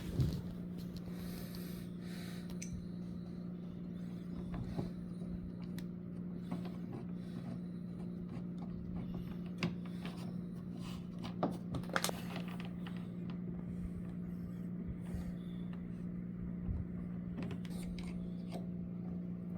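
Steady low hum under scattered light clicks and scrapes of small hardware and tools being handled, with a cluster of sharper clicks a little past the middle.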